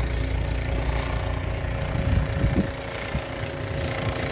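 An engine running steadily at idle, with a low rumble of wind on the microphone.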